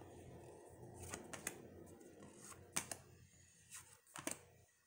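Faint clicks and light slides of oracle cards being handled, a few small taps as cards are taken off a stack and laid on a pile.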